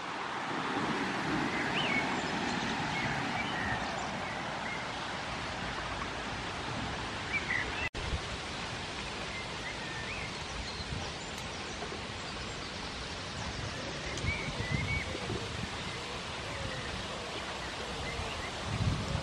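Outdoor ambience of steady rustling, with faint bird chirps here and there. The sound drops out for an instant about eight seconds in, and a few low rumbles or bumps on the microphone come later.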